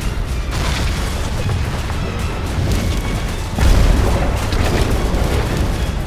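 Cinematic fight sound effects: a deep rumbling roar of energy and booms under dramatic music, with a heavy boom about three and a half seconds in.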